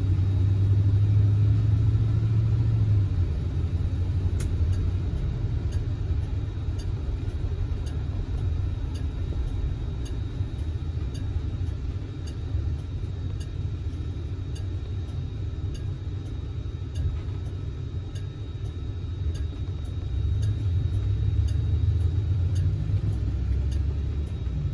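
Oldsmobile 350 V8 and road noise of a 1971 Cutlass S on the move, a steady low drone that grows heavier at the start and again near the end. A faint regular ticking comes through about twice a second.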